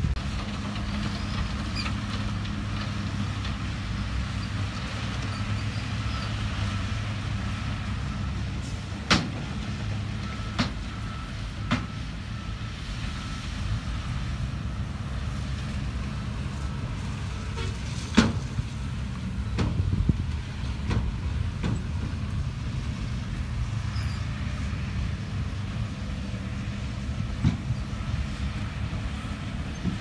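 Diesel engines of a bulldozer and loaded dump trucks running steadily, with a handful of sharp knocks, the loudest just past the middle. A faint high beeping comes and goes.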